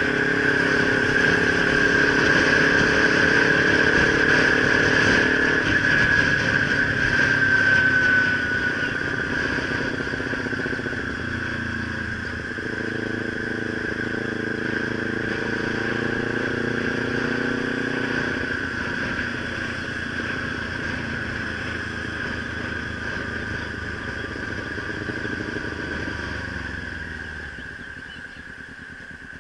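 Kawasaki Ninja 300's parallel-twin engine running under way with a steady high whine over it. The engine pulls hard, eases off about eight seconds in, pulls again a few seconds later, then quietens near the end as the bike slows behind traffic.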